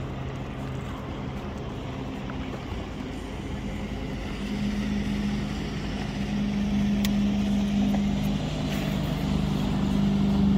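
A boat's motor running steadily; about four and a half seconds in its note steps up and grows a little louder, as if throttled up.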